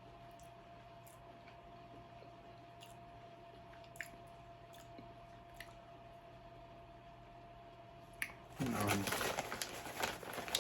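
Someone quietly eating potato-style chips: a few faint crisp clicks over a steady low hum, then near the end a loud crackling crunch and rustle.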